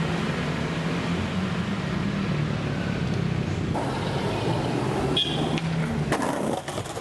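Steady low hum of a nearby vehicle engine running. After about four seconds a skateboard rolls on concrete, with a sharp pop of the tail about five seconds in and the board landing with a few loud knocks about a second later.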